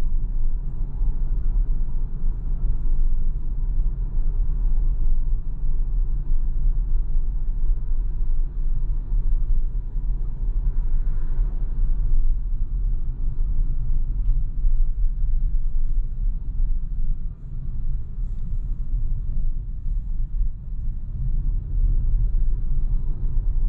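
Inside the cabin of a moving Tesla Model Y Performance: a steady low rumble of road and tyre noise, which the driver puts down to its large 21-inch wheels.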